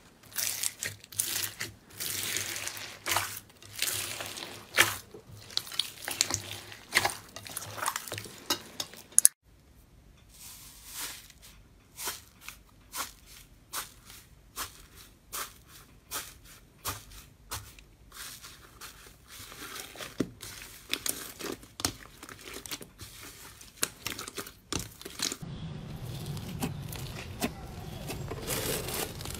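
Slime being pressed and squeezed by hand. First, clear blue slime packed with small beads gives dense, loud crackling and squelching. About nine seconds in this changes to quieter, sparser popping crackles from pink foam-bead slime (floam), then near the end to a steadier, denser crackle as blue and pink floam are kneaded.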